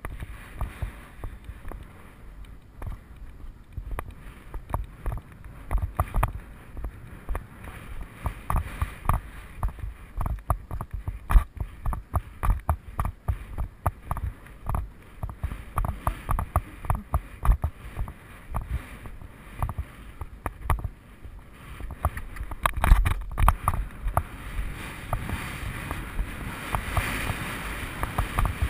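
A horse's hoofbeats on grass turf, heard from the saddle: a steady rhythm of low thuds, with wind buffeting the microphone, growing stronger near the end.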